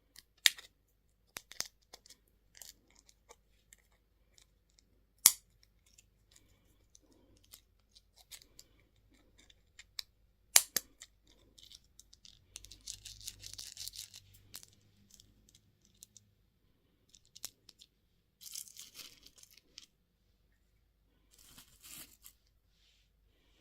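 Plastic candy wrappers being torn open and crinkled in short crackly stretches, among a few sharp clicks, the loudest about half a second, five seconds and ten seconds in.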